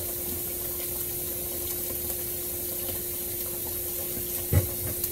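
Water running steadily into a kitchen sink, over a constant low appliance hum. A short knock sounds about four and a half seconds in.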